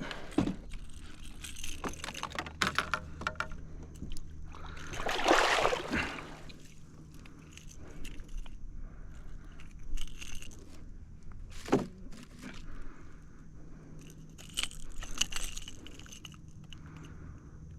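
Irregular clicks, knocks and rattles of fishing gear against a kayak's hull as the angler handles a freshly landed bass, with a longer, louder rushing noise about five seconds in and a sharp knock near the twelve-second mark.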